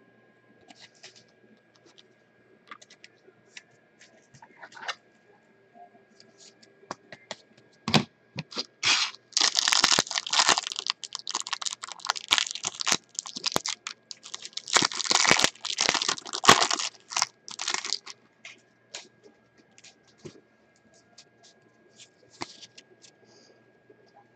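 A trading card pack wrapper being torn open and crinkled, with a dense stretch of tearing and crackling in the middle after light handling clicks and a thump.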